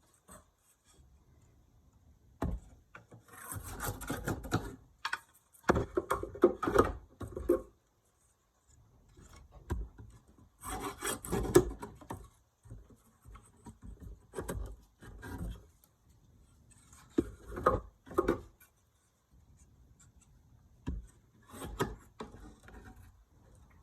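A bent-screwdriver scraper rasping old wax out of the grooves of a wooden beehive frame, in about six short bouts of scraping with a few knocks between them.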